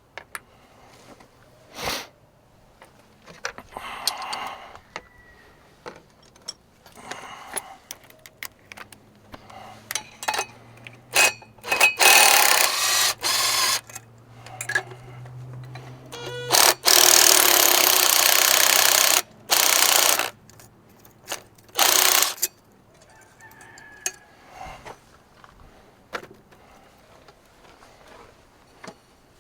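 Wrench work on a diesel's turbocharger mounting: scattered metal clicks and knocks of hand tools, with several loud hissing bursts from a pneumatic tool, the longest about two and a half seconds, in the middle of the stretch. A low steady hum runs under the first of the bursts.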